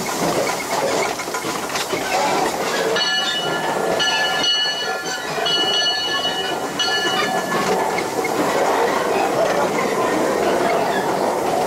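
1915 Baldwin 0-6-2T tank steam locomotive working slowly up a steep grade, heard from inside the cab as a steady, dense mechanical clatter. A high squeal made of several piercing tones comes and goes in four short stretches between about three and eight seconds in.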